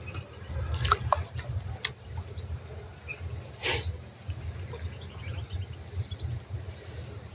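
Outdoor riverbank ambience: an uneven low rumble of wind on the microphone, with a few sharp clicks in the first two seconds and another about halfway through.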